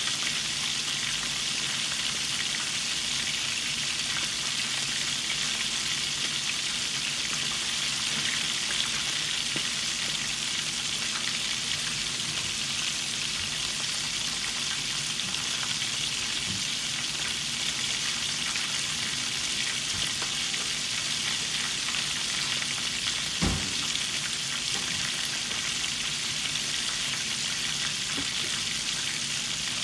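Floured chicken drumsticks deep-frying in hot oil in a stainless steel pan: a steady sizzle with faint small crackles. One short dull knock comes about two-thirds of the way through.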